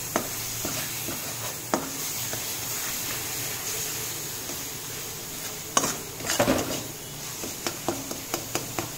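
Spice paste frying in oil in a steel kadhai, with a steady sizzle, while a metal spatula stirs and scrapes it. Scattered clicks and knocks of the spatula on the pan come more often in the second half. This is the stage where the masala is fried until the oil separates.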